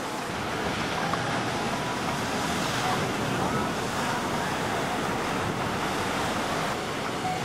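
Ocean surf: small waves breaking and washing into whitewater, a steady rush.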